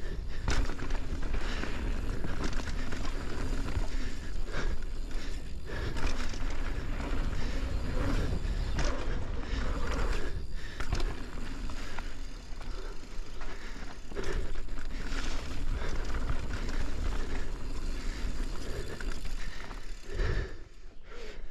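Mountain bike riding fast down a dirt trail: knobby tyres rolling over packed dirt, with frequent knocks and rattles from the bike over bumps and jump landings, over a steady low rumble.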